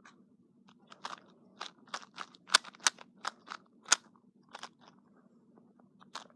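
A plastic 2x2 Dayan Zhanchi speed cube being turned by hand during a solve: a quick, irregular run of sharp clicks, about a dozen over three or four seconds starting about a second in, over a faint steady hum.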